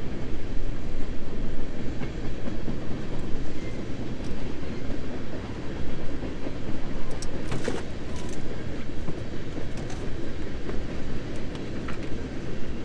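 Wind buffeting the microphone: a steady, heavy low rumble that rises and falls, with a few sharp clicks about seven and a half seconds in.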